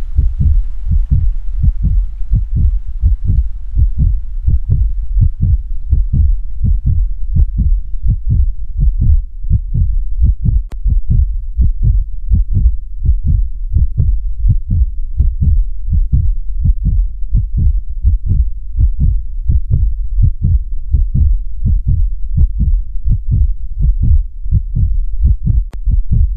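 Heartbeat sound effect: low, loud thuds repeating in a steady rhythm a little over two a second, like a slow heart.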